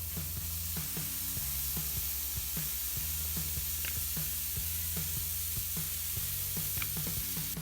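Waffle batter sizzling on a hot, preheated waffle iron: a steady hiss.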